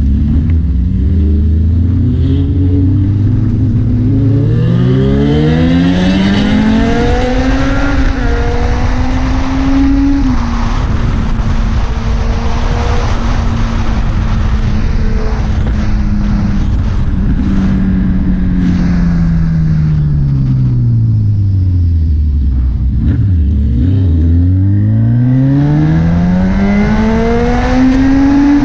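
Honda CB1000R's inline-four engine revving. Its pitch climbs slowly over about ten seconds, holds high for several seconds, falls back to low revs a little past twenty seconds in, then climbs again near the end.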